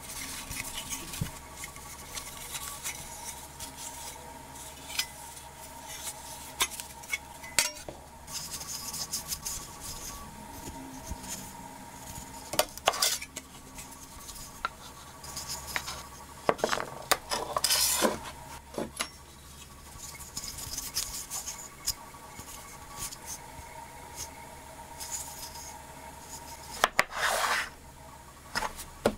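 Handling noise from a steel hand saw blade and a wooden saw handle being picked up, turned over and set down on a wooden tabletop: scattered light metallic clinks and taps with a few brief scraping rubs. A faint steady hum runs underneath.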